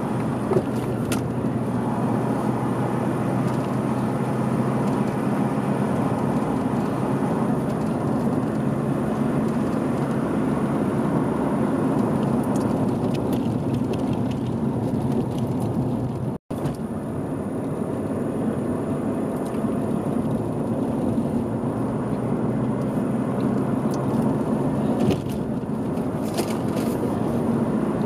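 Car driving along a road: steady engine and tyre noise, with a short click about half a second in. The sound cuts out for an instant about sixteen seconds in.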